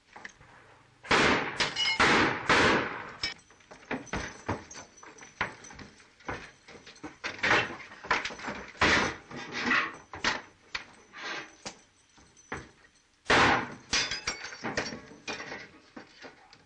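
Rapid revolver gunfire in a shootout: many sharp shots in quick succession starting about a second in, mixed with crashes and clatter as a table is tipped over, with a brief lull just before a fresh burst near the end. The sound comes from an old optical film soundtrack with a dull, limited top end.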